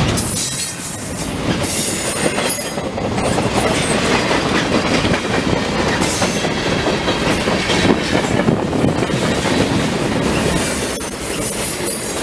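Freight train rolling past close by at speed, its double-stack container cars and boxcars rumbling and clattering on steel wheels over the rails.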